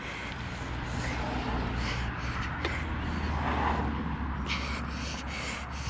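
Quick footsteps on a tarmac path come in about four and a half seconds in, over a steady low rumble that swells a little midway.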